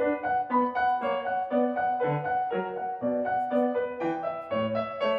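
Background piano music: a gentle run of single struck notes with a steady pulse, a few notes a second.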